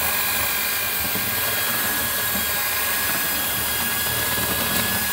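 Electric hand mixer running steadily with a constant motor whine, its beaters working cold butter and icing sugar in a glass bowl into a vanilla buttercream. The butter is still cold, so the mixture is crumbly and slow to come together.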